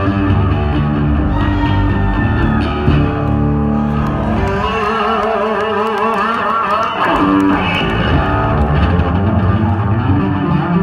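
A Yamaha electric bass guitar played solo through an amplifier: sustained low notes, then from about four seconds in a fast repeating run of higher notes with a wavering pitch, and a falling slide near seven seconds.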